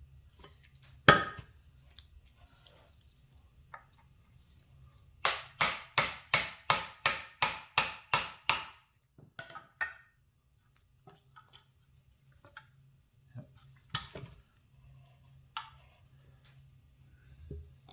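Hammer tapping a new bushing into an ATV A-arm's pivot: one sharp knock, then a run of about eleven quick, even taps at roughly three a second, and a few lighter knocks near the end.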